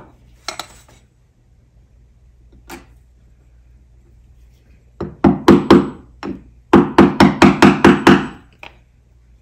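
Hammer striking the end of a screwdriver handle held against a hole in a concrete wall, driving it deeper. A couple of single taps, then a quick run of about a dozen sharp strikes in the second half.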